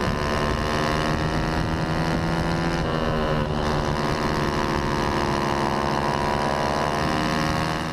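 Onboard sound of a 110 cc racing kart engine running hard. Its note dips about three seconds in and then climbs again as the kart goes through a corner.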